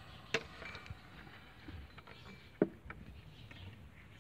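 Hands working on the serpentine belt drive of a stopped engine: two sharp knocks of metal or parts being handled, one soon after the start and a louder one about two and a half seconds in, with a few faint ticks between them.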